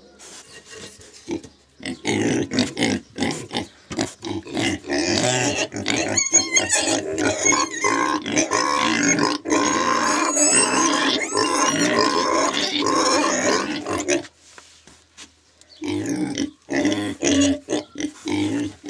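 Pigs squealing loudly and almost continuously for about twelve seconds, then a short pause followed by a few more squeals near the end.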